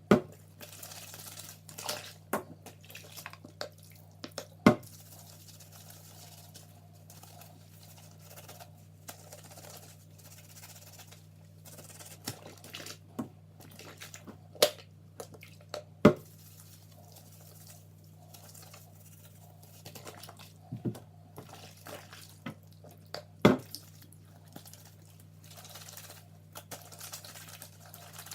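Water splashing and dripping in a basin of soapy water where cloths are soaking, in scattered short sounds with several sharp knocks, over a steady low hum.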